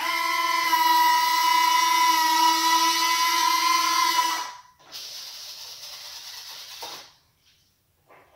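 Electric retractable landing gear of a 90mm EDF RC jet extending: a steady high motor whine for about four and a half seconds, then a quieter, rougher whir for about two seconds that ends in a faint click.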